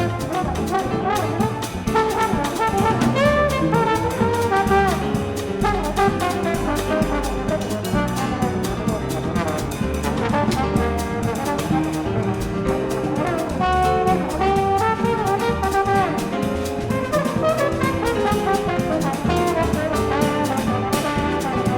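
Live small-group jazz, a brass lead (trombone by its sound) playing over piano, upright bass and a drum kit keeping time.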